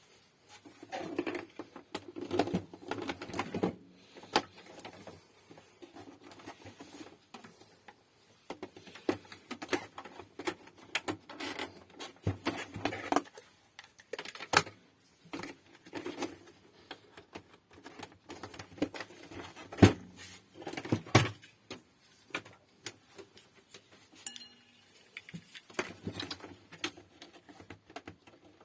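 Irregular clicks, taps and light rattles of small hard objects being handled, with brief rustling in between, in a small room.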